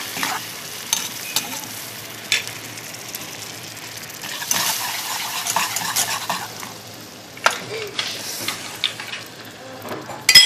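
Caramelized sugar and melting butter sizzling and bubbling in a pan, being stirred, with a few sharp clinks of a utensil against the pan and a louder knock near the end. This is the stage where butter goes into the molten caramel for toffee sauce.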